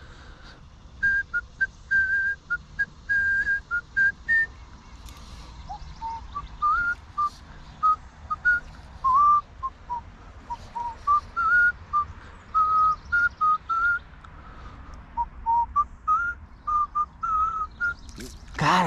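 A person whistling a tune: a string of clear, held notes stepping up and down in pitch, starting about a second in and stopping shortly before the end.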